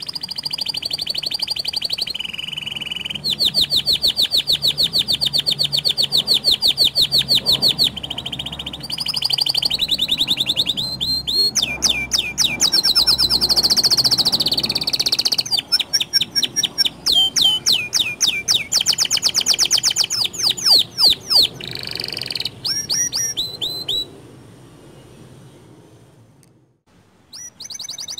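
Canary singing a long song of fast trills and runs of rapidly repeated high notes, changing from one phrase to the next. The song stops about 24 seconds in and starts again near the end.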